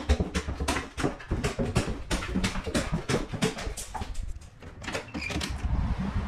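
A quick, irregular run of light clicks and knocks, several a second, in a small room, stopping near the end.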